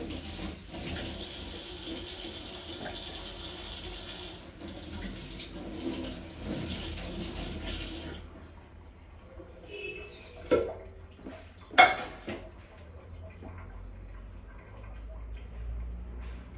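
Water running steadily from a tap, shut off abruptly about eight seconds in; two sharp knocks follow a few seconds later, the second louder.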